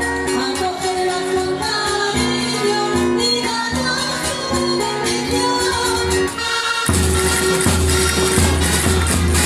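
Castilian dulzainas (double-reed shawms) playing a jota melody over a drum beat. About seven seconds in, the drumming turns suddenly louder and busier.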